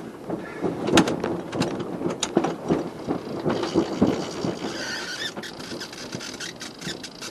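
Yacht sheet winch being cranked with a handle to trim in the genoa after a tack, its pawls clicking in quick repeated runs, with a high squeal coming in about halfway through.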